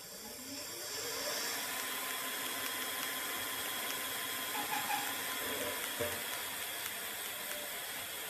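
Electric bike conversion kit motor spinning up, its whine rising over about the first second, then running steadily with a hiss and a steady whine.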